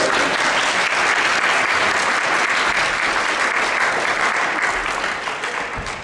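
Audience applauding, the clapping dying away near the end.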